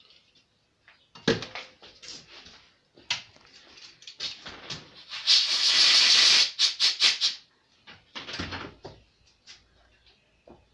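Tools and small parts clattering, then about five seconds in a compressed-air blow gun hissing for about a second, followed by several short puffs, blowing off a small latch part.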